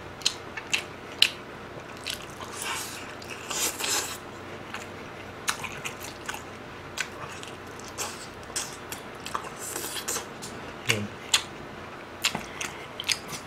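Close-up chewing of sauced fried chicken: wet mouth smacks and clicks, with bites and crunches scattered irregularly.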